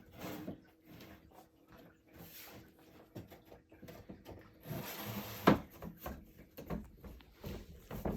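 Wooden dresser panel being handled and slid into its grooves: light scraping and scattered knocks of wood on wood, with one sharp knock about five and a half seconds in.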